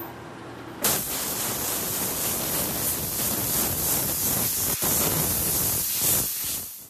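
Steady hiss of blown air, starting suddenly about a second in, with a brief break near the five-second mark: air blowing sanding dust off the freshly sanded wood.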